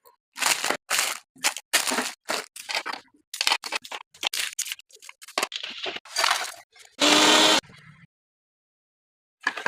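A run of short scraping strokes, two to three a second, then one louder, harsher burst about seven seconds in, followed by a pause.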